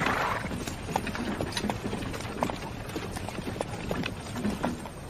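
Several horses' hooves clip-clopping at a walk, an irregular patter of hoof clicks, with a short breathy rush of noise right at the start.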